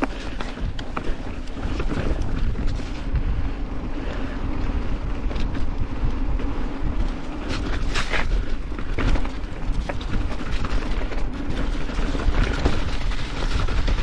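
Mountain bike riding on a muddy trail: wind rushing over the camera microphone with steady tyre and trail noise, and a few sharp clicks and knocks from the bike.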